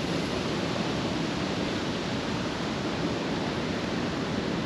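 Steady, even rushing noise, without distinct events or changes.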